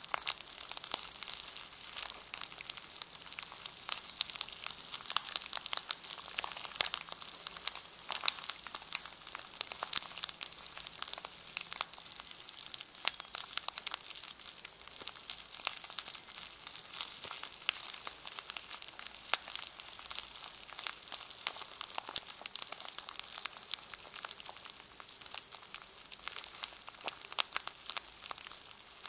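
A brush in its plastic packaging crinkling and crackling close to the microphone: a dense, continuous patter of fine crackles.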